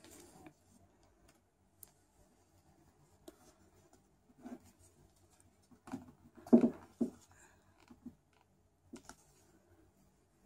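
Scattered small clicks and handling knocks from a Canon EOS 60D DSLR's buttons and mode dial being worked one-handed, louder for a moment about six to seven seconds in.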